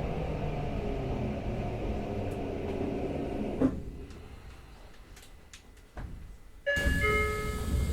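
Tokyo Metro 05 series train braking to a stop, the whine of its Mitsubishi IGBT inverter falling in pitch, ending with a clunk about three and a half seconds in. After a quiet stretch, a sudden louder burst with steady bell-like chime tones near the end, as the doors open at the station.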